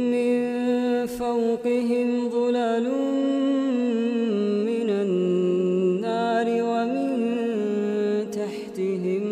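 A man's voice reciting the Quran in slow, melodic tajweed style: one long phrase of drawn-out notes that step up and down with small ornamental turns.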